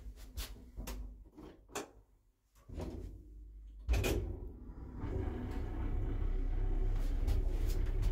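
1984 ZREMB "Osiedlowy" passenger lift: a few sharp clicks and knocks, a loud clunk about four seconds in as the car sets off, then a steady low rumble as the car travels.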